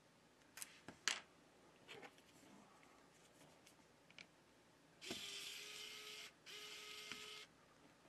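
Xiaomi electric precision screwdriver's small motor whirring in two runs of about a second each, undoing phone motherboard screws. A few light clicks come earlier.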